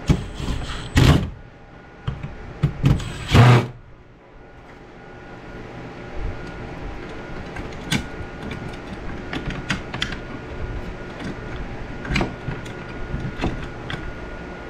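A small power tool's motor runs in two short bursts in the first four seconds, followed by scattered sharp clicks and knocks over a steady background hum.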